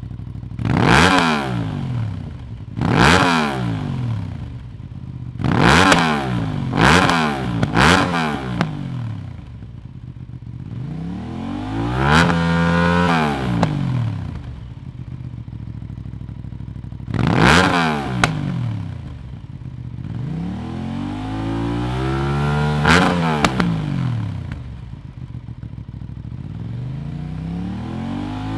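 Aprilia RS/Tuono 660 parallel-twin engine through a Zard racing full exhaust system, idling and revved by the throttle: a run of five quick, sharp blips, then three longer revs, the last climbing slowly before falling back to idle.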